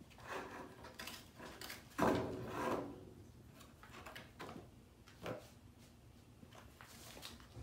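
Cardboard pizza box scraping and knocking as kittens play in and around it, in several short bouts; the loudest scrape comes about two seconds in.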